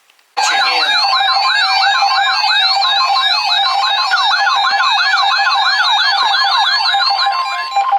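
Weather alert radio sounding its warbling siren alarm for a flood watch: a loud electronic tone sweeping rapidly up and down, about four times a second, starting about half a second in. It ends in a steady tone just before the broadcast message.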